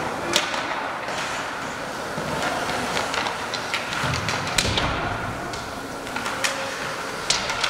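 Ice hockey play in an arena: scattered sharp clacks of sticks and puck, with a heavier thud, like the puck or a player against the boards, a little past halfway, over a steady arena background.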